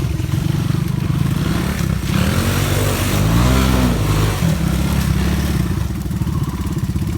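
Honda ATC three-wheeler's single-cylinder engine running under a rider, revving up and dropping back down about two to four seconds in.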